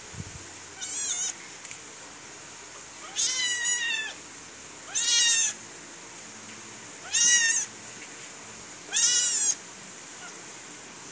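Ginger kitten mewing: five high-pitched mews, each rising and then falling in pitch, spaced about two seconds apart.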